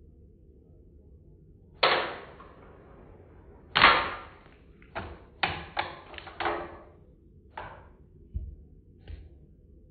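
Toy spinner launcher firing a plastic spinner: two sharp snaps about two seconds apart, the second the loudest, each dying away quickly. A run of lighter plastic clicks and clatters follows, then two soft thumps near the end.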